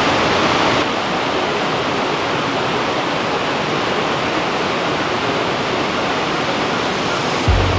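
Waterfall pouring steadily, a continuous rush of falling water. Near the end, music with a low beat starts up over it.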